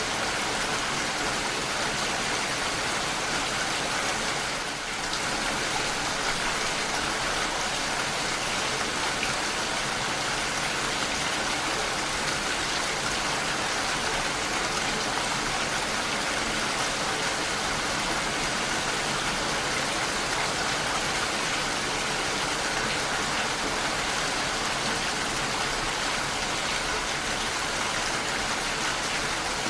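Steady rain falling, an even hiss of drops with no thunder, softening briefly about five seconds in.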